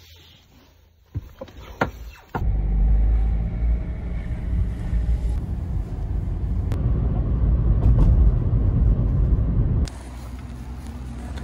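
A few sharp clicks, then about two and a half seconds in a car engine comes on and runs with a loud, steady low rumble heard from inside the cabin. Near the end it gives way to quieter street noise.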